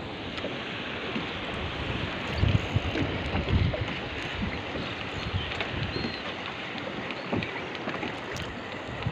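Wind blowing on the microphone over choppy sea water, a steady rushing noise with a few low gusts about two and a half and three and a half seconds in.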